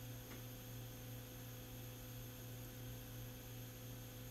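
Steady low mains hum with faint hiss underneath.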